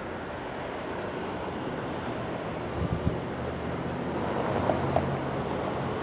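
Street traffic: a steady wash of passing-car noise. About halfway through, a vehicle engine's low hum joins it and the noise grows a little louder.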